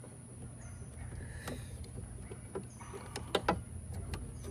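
Light clicks and taps of a tailgate latch's metal linkage rods being worked into a new latch, with a couple of sharper clicks about three seconds in.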